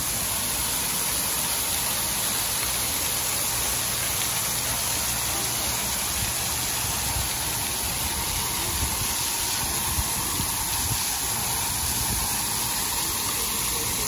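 A ring of vertical fountain jets splashing: a steady rush of falling water hissing onto wet paving.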